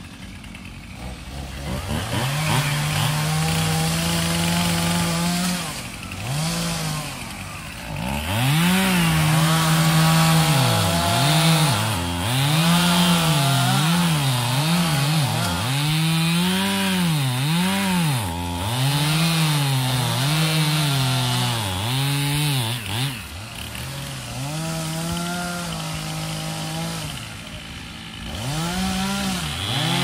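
Two-stroke chainsaw cutting cedar: the engine revs up a couple of seconds in, then its pitch dips and climbs again and again as it works through the wood, settling lower for a while near the end before revving up once more.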